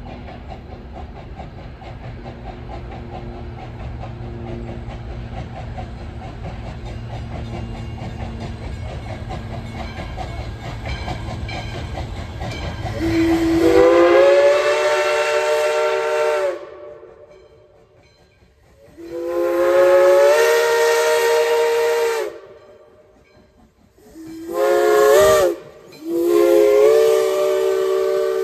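Steam whistle of Baldwin 0-6-0 No. 58 blowing the grade-crossing signal, long, long, short, long, each blast a chord of several tones. It is preceded by the steady low rumble of the approaching train.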